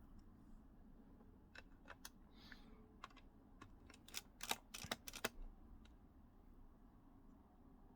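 Light, sharp clicks and taps of a small screwdriver working the screws in a laptop's plastic and metal chassis. The clicks come scattered at first, then bunch together about four to five seconds in, then stop.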